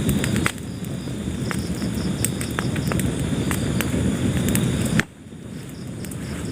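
Wood fire burning in a fireplace: a low steady rumble with scattered sharp crackles and pops. The level drops suddenly about five seconds in and builds back up.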